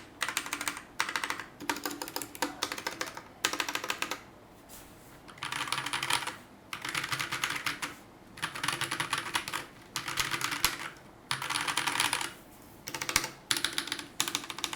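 Mechanical keyboard with stock, unlubricated Akko Matcha Green linear switches, keys pressed individually in short bursts of rapid clacking keystrokes with brief pauses between them and a longer pause about four seconds in.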